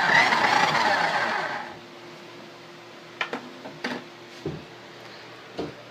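Toy RC truck's small electric motor and gears whirring loudly for about two seconds, then stopping, heard from a phone riding in the truck's bed. A few light clicks and knocks follow.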